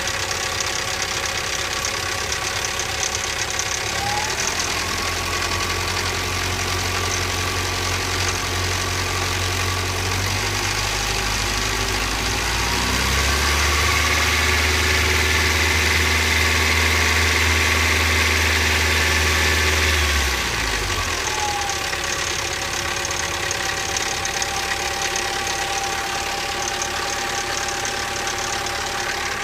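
Toyota 22RE 2.4-litre four-cylinder engine idling, with a rattle that the owner puts down to a slack timing chain. About halfway through the revs rise and hold for several seconds, then drop back to idle.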